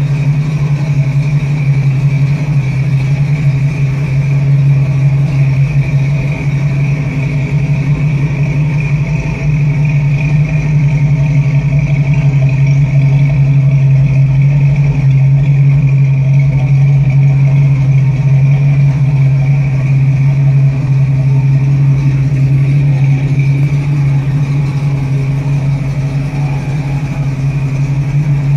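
1966 Ford Mustang GT's A-code 289 V8 idling steadily, with no revving.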